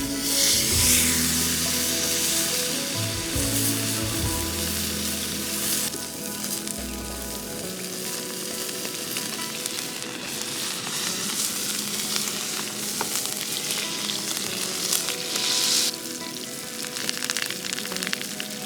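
Steak sizzling in a hot pan, a steady frying hiss, with background music over it. The music's bass drops out about seven seconds in.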